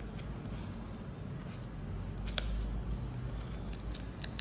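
Hands handling a cloth drawstring pouch and its card tag: soft rustling, with a few sharp light clicks, the clearest about two and a half seconds in.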